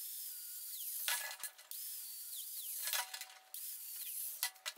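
Angle grinder with a cut-off disc slicing through braided oil-cooler hose at a taped mark, in three short bursts of high whine, the pitch dropping away as the disc slows after the later ones.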